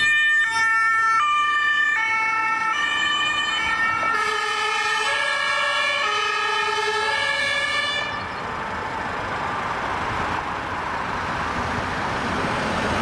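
German two-tone ambulance siren (Martinshorn) alternating between two notes as the vehicle pulls away, with a second, out-of-step set of siren tones overlapping from about four seconds in. The siren stops about eight seconds in, leaving the rushing noise of a car passing close by.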